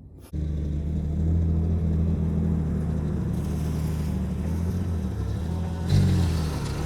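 Vehicle engine running steadily with a low, even hum, cutting in abruptly a moment in; about six seconds in there is a short louder surge before it settles again.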